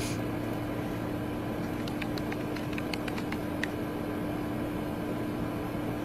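Steady hum with an even hiss, like a fan or electrical drone, holding one low tone throughout. A few faint ticks come about two to three and a half seconds in.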